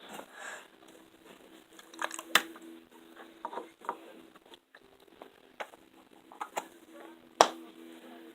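Slime being handled, squished and poked, giving a string of sharp pops and clicks, the loudest about seven seconds in, over a faint steady hum.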